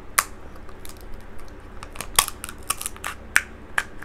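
Scissors snipping through crab leg shell: a run of sharp, irregular cracks and snips, about eight in four seconds.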